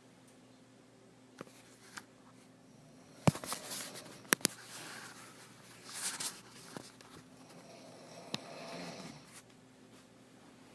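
A pause in a sleeping woman's snoring, filled with scattered sharp clicks and short rustles, the loudest click about three seconds in. Near the end comes one soft, noisy breath.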